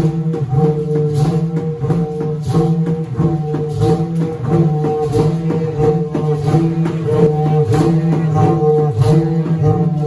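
Several long wooden trumpets blown together, sounding low droning notes in a repeating rhythmic pattern.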